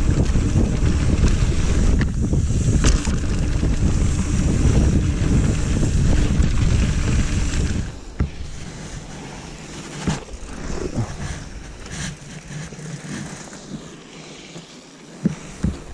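Loud wind buffeting on the microphone of a camera mounted on a mountain biker, mixed with knobby tyres rumbling over a dirt trail. About eight seconds in it drops suddenly to a much quieter background broken by a few scattered clicks and knocks.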